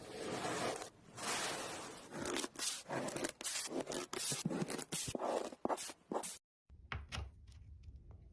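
Slime or clay being worked by hand, making irregular scraping, crackling strokes. It cuts off abruptly about six seconds in, leaving a faint low hum.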